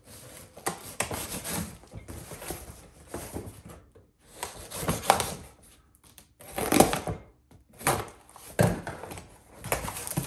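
Utility knife slitting packing tape on a cardboard box, a series of irregular scraping cuts, then the cardboard flaps being pulled open near the end.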